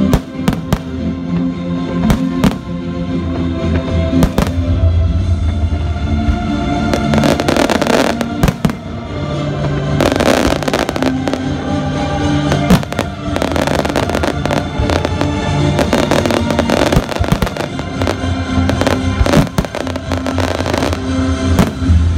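Aerial fireworks going off in many sharp bangs, with several stretches of dense crackling, over loud music.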